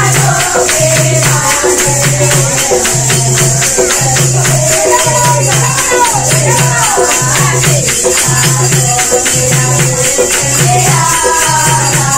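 Langurya folk devotional song sung by women, with a repeating low beat about once a second and continuous jingling percussion.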